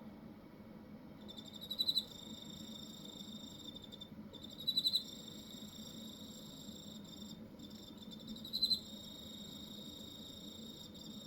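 Cricket singing: a high-pitched trill that starts about a second in and runs on with brief breaks. Three times, about every three to four seconds, a louder pulsing chirp opens a new phrase.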